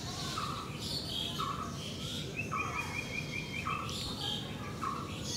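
Birds calling: one repeats a short note about once a second, while others chirp higher. A quick run of repeated notes lasts about a second midway.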